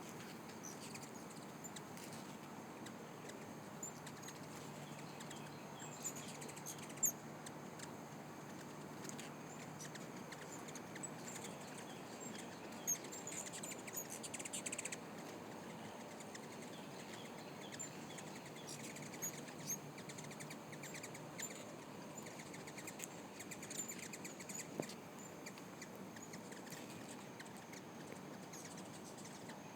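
Many hummingbirds chirping around feeders: scattered short, high-pitched chips throughout, with a brief louder buzz about halfway through.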